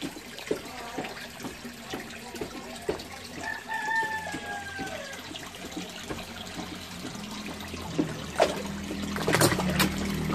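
Koi crowding at the pond surface, splashing and slurping at the water with many short wet splashes, busiest and loudest near the end. A brief falling animal call sounds a little before halfway, and a low steady hum comes in during the second half.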